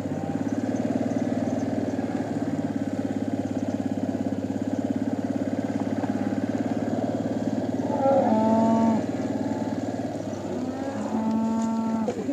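Cattle mooing twice, a call of about a second some eight seconds in and another near the end, over the steady low hum of an engine running.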